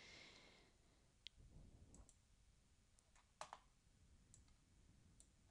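Near silence with a handful of faint computer mouse clicks spread out, the loudest a pair of clicks about three and a half seconds in.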